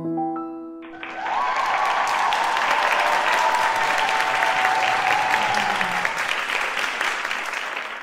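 The last few piano notes of a slow ballad ring out, then about a second in an audience breaks into steady applause that carries on until it cuts off at the end.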